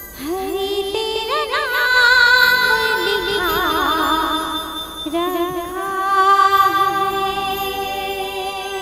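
A woman singing a Chhattisgarhi devotional bhajan into a microphone: long held notes with fast, wide vibrato and quick ornamented runs. Steady sustained keyboard notes come in underneath in the second half.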